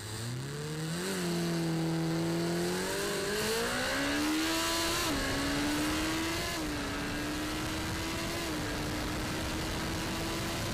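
Kawasaki Ninja ZX-14R's inline-four engine at full throttle during a hard acceleration run. The engine note climbs and dips at the upshifts about one, five and six-and-a-half seconds in, then holds a steady high pitch, with wind rushing past underneath.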